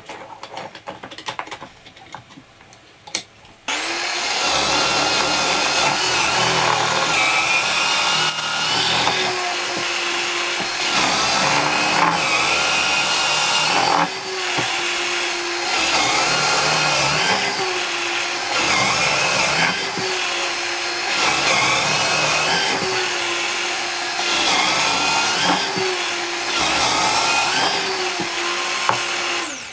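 A Bosch benchtop drill press starts about four seconds in after a few light knocks, then drills a row of holes in a pine board. Its motor pitch dips and recovers about every two seconds as the bit is fed into the wood and withdrawn, hole after hole.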